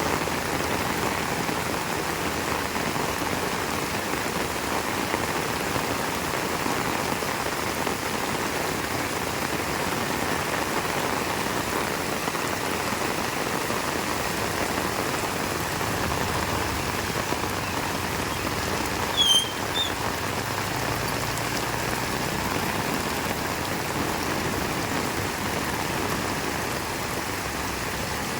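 Heavy rain falling steadily. About two-thirds of the way through, a short high squeak sounds twice in quick succession, the loudest moment.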